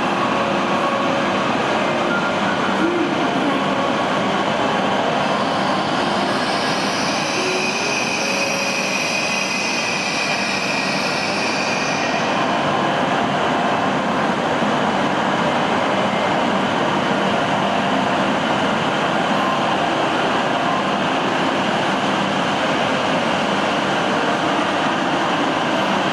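521 series electric multiple unit running into a station with a steady rumble. About six seconds in, a high squeal rises for several seconds and then fades.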